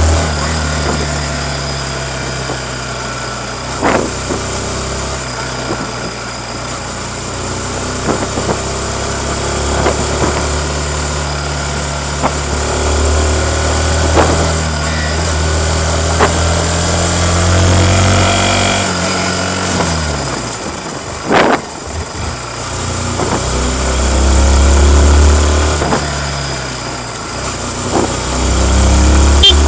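Yamaha MT-15's 155 cc single-cylinder four-stroke engine running on its stock exhaust while riding, its pitch rising and falling as the rider accelerates and eases off. A sharp knock stands out about two-thirds of the way through.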